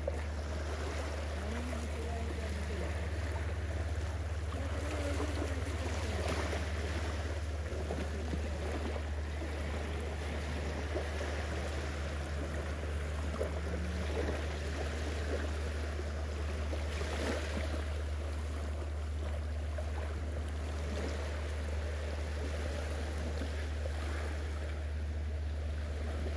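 Beach ambience: a steady low rumble of wind on the microphone under a hiss of gentle surf washing on the sand.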